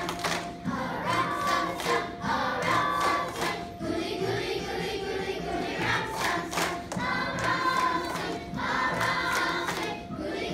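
Third-grade children's chorus singing a song together.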